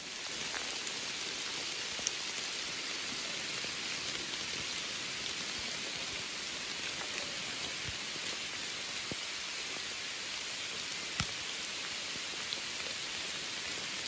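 Steady rain falling on forest foliage and a wet trail, an even hiss with a few scattered sharper drop hits.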